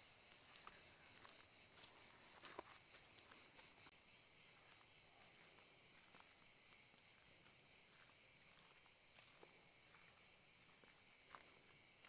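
Faint, steady high chirring of insects with a fast, even pulse, and a few soft clicks, the sharpest about two and a half seconds in.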